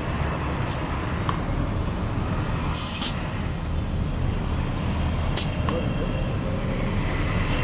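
Short hissing bursts of compressed air, like a tyre inflator or air gun. There are four of them, and the longest, about half a second, comes about three seconds in. Under them runs a steady low rumble of vehicles.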